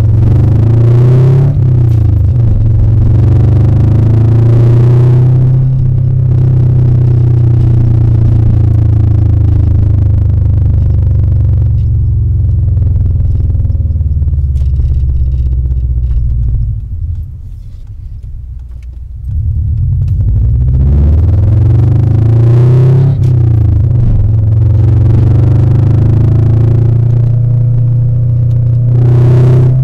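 2000 Subaru Impreza 2.5RS's 2.5-litre flat-four engine running loud through an aftermarket header, high-flow cat and exhaust, a deep drone with the revs rising and falling. It drops away briefly a little past halfway, then picks up again.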